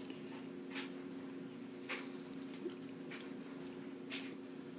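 Small dachshund nibbling kernels off a cooked cob of corn held in hand: quick chewing clicks and smacks, loudest between two and three seconds in, with a few short breathy puffs.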